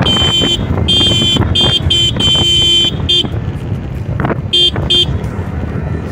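A vehicle horn honked in a run of short and longer blasts through the first three seconds, then two quick toots a little later, over a running motorcycle engine and wind rush.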